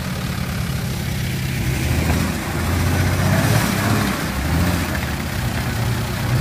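Off-road 4x4 engine running at low speed through deep mud, its pitch rising and falling a few times as the throttle is worked.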